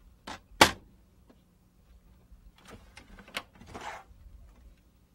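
A sharp plastic clack, the loudest sound, about half a second in as the LaserWriter Pro laser printer's top cover is shut. A few seconds later come several plastic clicks and a short scraping slide as the paper cassette is pulled out of the printer.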